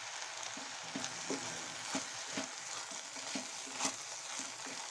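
Raw rice frying and sizzling in oil and masala in a pressure cooker pot, with a spatula stirring and scraping against the pot in repeated strokes. The rice is being fried in the masala before the water goes in.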